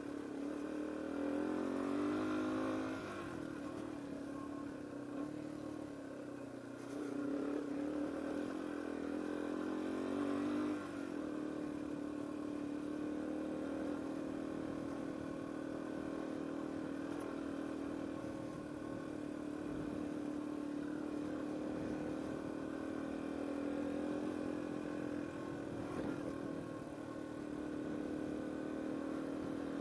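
Yamaha TW200's single-cylinder four-stroke engine riding along a dirt track: its pitch climbs and drops back twice in the first ten seconds or so, then it runs steadily at a cruising speed.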